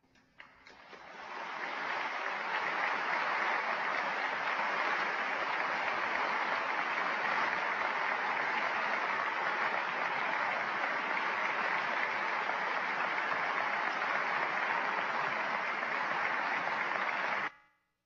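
Audience applauding. It builds up over the first couple of seconds, holds steady, and cuts off suddenly near the end.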